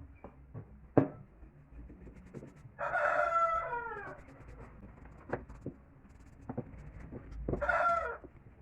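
A rooster crows twice, a long crow about three seconds in and a shorter one near the end, with a few light knocks in between.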